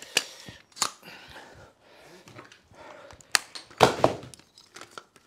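Metal skeleton caulking gun being reloaded with a fresh silicone tube: several sharp clicks and clacks as the plunger rod is pulled back and the cartridge is swapped, the loudest about four seconds in.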